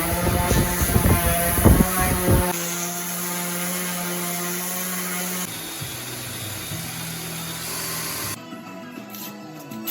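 A power tool running steadily. For the first two and a half seconds it is mixed with a quick series of sharp knocks, and at about eight seconds in it cuts off abruptly.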